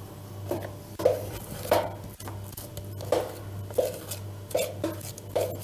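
A spoon knocking and scraping against a bowl about eight times, at an uneven pace, as whipped cream is scooped out and dropped onto custard in a glass dish. A low steady hum runs underneath.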